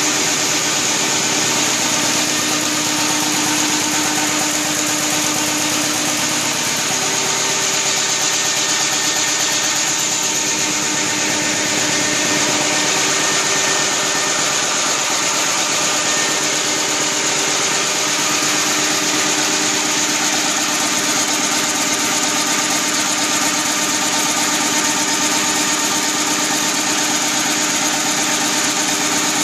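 Halm Jet envelope offset printing press running steadily: an even, dense mechanical noise with a high hiss and a few faint steady tones.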